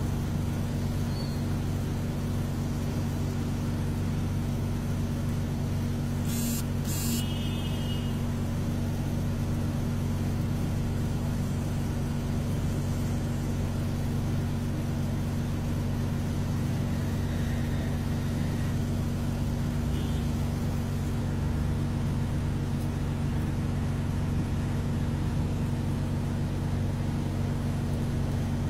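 Steady low machine hum made of several level tones, unchanging throughout. There is a brief high click or scrape about six and a half seconds in.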